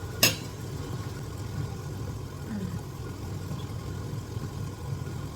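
Steady low mechanical hum in a kitchen while food cooks, with one sharp clink of a utensil against a pot about a quarter second in.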